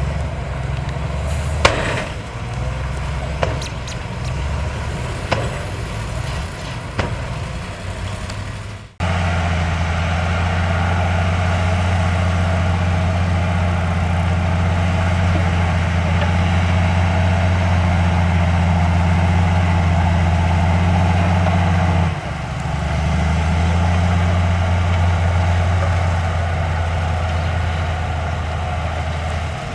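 Heavy diesel construction machinery running, with scattered knocks and clanks over the first nine seconds. After an abrupt cut, a louder, steady engine note follows, which shifts about twenty-two seconds in.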